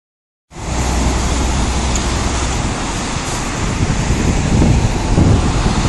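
Strong typhoon wind blowing across the microphone: a steady roar with low buffeting gusts that grow stronger about four seconds in.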